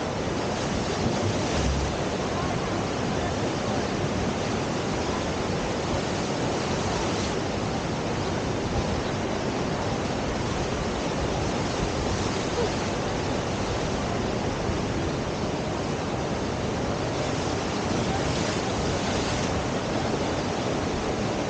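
River water rushing steadily through a standing river surf wave.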